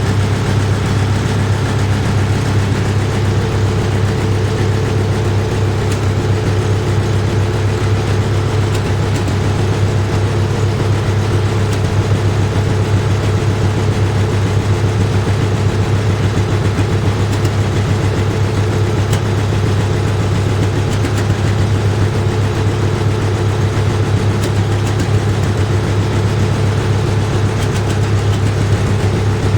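Farmall MD tractor's four-cylinder diesel engine idling steadily after a cold start.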